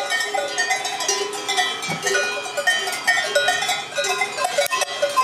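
Many cowbells on a grazing herd of cattle clanking and ringing together, an irregular jangle of overlapping tones.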